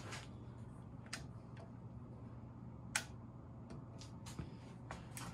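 A few scattered sharp clicks over a faint, steady low hum, the loudest click about three seconds in.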